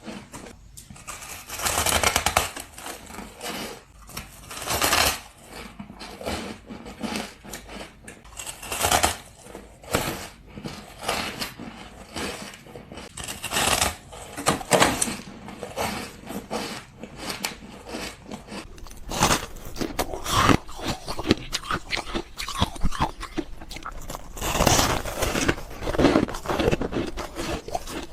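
Close-miked crunching and chewing of soft ice and freezer frost, coming in irregular surges of crackly crunches every few seconds.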